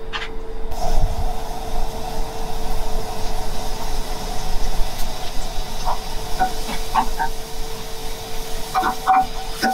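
Minced garlic frying gently in olive oil in a frying pan on a gas burner, a steady soft sizzling hiss over a constant kitchen hum.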